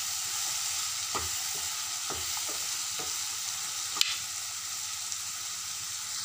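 Chopped vegetables sizzling in oil in a wok while a spatula stirs them, with a steady high sizzle and a few soft scrapes. One sharp tap about four seconds in.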